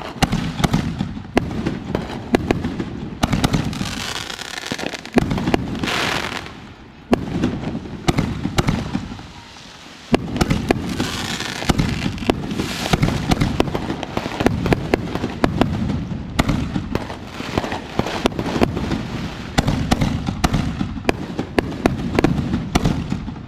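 Fireworks going off in quick succession, a steady barrage of sharp bangs and crackling. Twice, around four seconds in and again near the middle, longer hissing stretches rise over the bangs.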